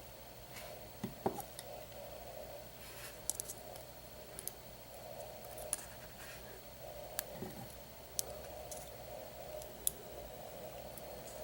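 Scattered small metal clicks and taps of lock pins and springs being worked out of a mortise lock cylinder, over a faint steady hum.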